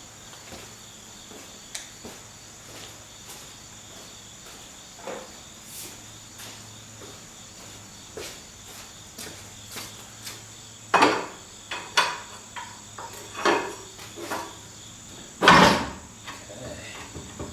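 Scattered metal knocks and clunks from working a Rolls-Royce Phantom III's front suspension cross member loose, growing louder with several bangs about eleven seconds in and the heaviest clunk near the end. A steady high-pitched hum runs underneath.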